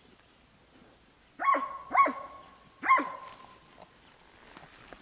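A dog barking three times: two barks about half a second apart, then a third about a second later.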